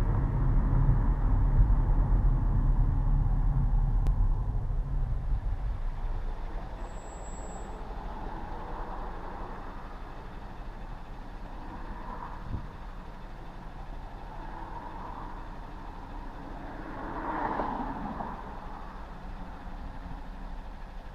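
Road noise inside a moving car: a low engine and tyre rumble that eases off about five seconds in as the car slows. It then settles into a quieter hum with a few faint swells, the clearest near the end.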